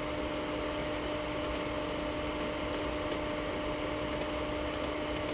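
Steady low hiss with a faint steady electrical hum and a few faint high ticks: the two-way radio is silent between transmissions, its squelch closed.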